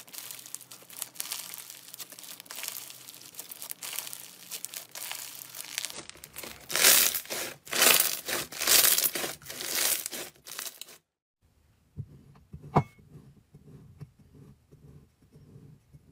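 Crunchy bead-filled slime squeezed by hand, crackling and popping. About six seconds in the hands press down on it and the crunching comes in louder, in repeated squelches. After a short break there are fainter scraping sounds and one sharp click as a knife slices a blue foam block.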